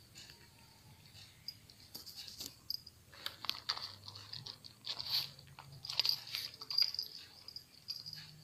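A cat crunching dry kibble close to the microphone: a quick run of crisp crunches, several a second, from about two seconds in until near the end.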